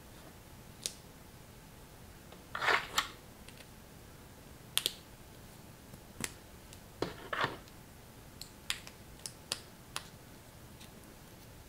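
Knockoff LEGO-style plastic building bricks clicking and snapping as they are handled and pressed together, with irregular single clicks and a couple of short rattles of pieces, the loudest about three seconds and seven seconds in.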